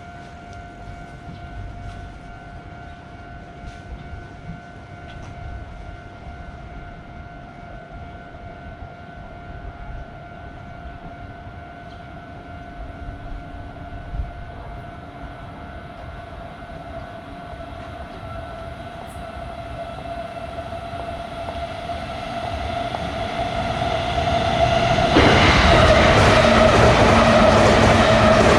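Japanese railroad crossing alarm sounding steadily as a train approaches. The train's rumble grows over the second half and turns into a loud pass-by about 25 seconds in.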